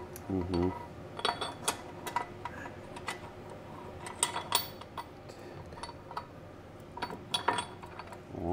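Irregular metallic clicks and clinks of steel transmission parts being handled and seated in the aluminium case of an A6MF1 automatic transmission, as a shaft with a tapered roller bearing is fitted during reassembly.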